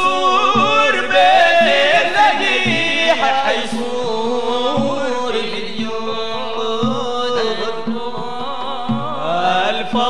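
Sudanese madeeh (Sufi praise song): men chanting an ornamented, wavering melody over a steady low drum beat about once a second.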